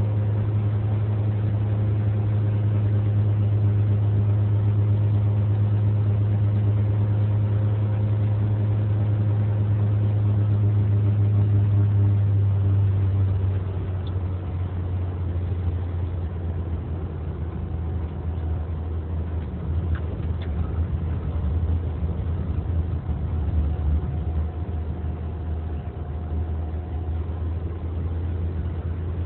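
Car engine and tyre noise while driving along a road: a steady engine hum that drops to a lower, quieter note about midway through and stays there.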